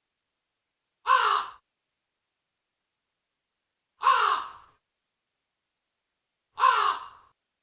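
Crow cawing: three single caws, each about half a second long, spaced about three seconds apart, with silence between them.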